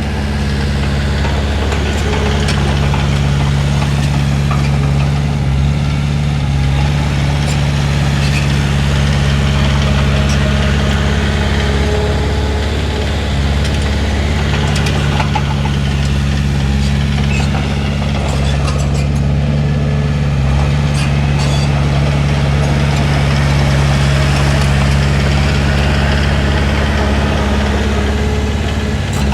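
Heavy diesel engine of earthmoving equipment running steadily, with a few scattered clanks and rattles.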